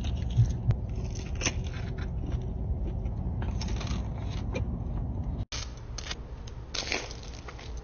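Close-miked eating sounds of chicken wings being handled and eaten: scattered small clicks, scrapes and crackles over a low background rumble, broken by a sudden brief dropout about five and a half seconds in.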